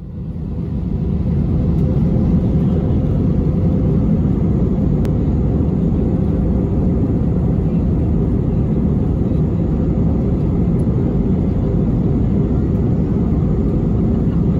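Cabin noise inside an Airbus A320 near the wing while it taxis: its IAE V2500 turbofans run at a steady low power under a deep, even rumble with a faint steady hum. The sound fades in over the first couple of seconds and then holds level.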